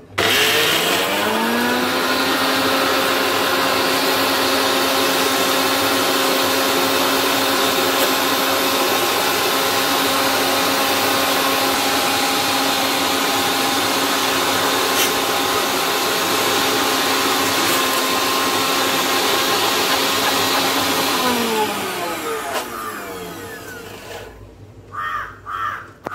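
Electric mixer-grinder dry-grinding coconut and spices without water: the motor spins up within about a second, runs at a steady whine for about twenty seconds, then is switched off and winds down with a falling pitch.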